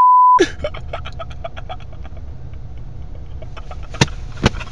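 A half-second censor bleep at the start, then a car idling, heard from inside the cabin, with a fast, even run of faint ticks. Two sharp knocks about half a second apart come near the end.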